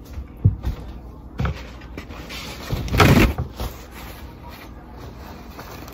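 Kitchen things being handled: a couple of short knocks, then a louder rush of noise lasting about a second, about three seconds in.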